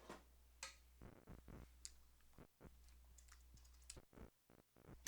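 Near silence with a few faint, light clicks and taps, scattered irregularly, such as utensils knocking in the kitchen.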